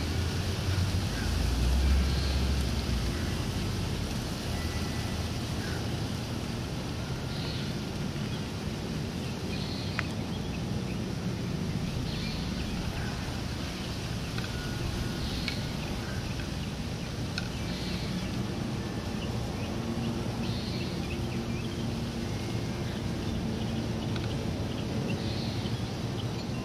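Wind on the microphone over a steady outdoor background rumble, with a stronger gust about two seconds in; faint wind chime tones sound now and then.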